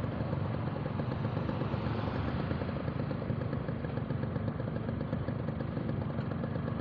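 Motorcycle engine running steadily, heard from the rider's seat.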